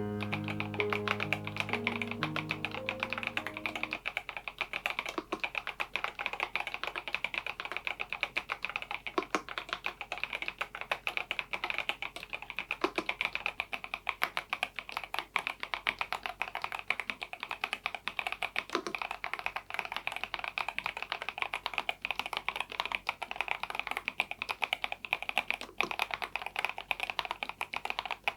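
Continuous fast typing on an EPOMAKER Dynatab 75X mechanical keyboard with its stock Flamingo linear switches: a dense run of key clicks. A short piece of background music ends about four seconds in.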